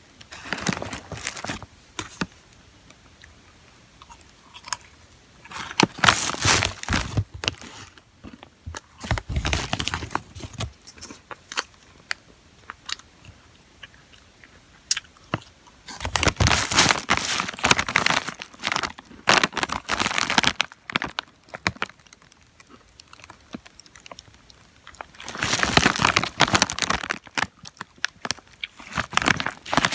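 Crunchy snacks being bitten and chewed close to the microphone, coming in several bursts of crunching a few seconds long with quieter pauses between.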